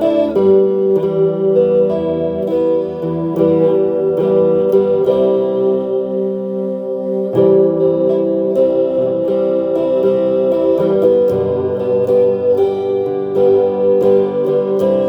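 Instrumental music with no singing: sustained pitched notes changing every second or so, played live through an old effects rig during a sound check.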